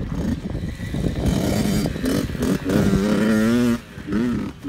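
Small dirt bike engine running and revving, its pitch rising and falling in quick throttle blips, with a couple of brief dips in level near the end.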